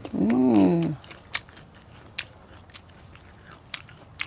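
A person chewing a crisp raw guava, with scattered crunches every second or so, after a hummed "mmm" lasting about the first second.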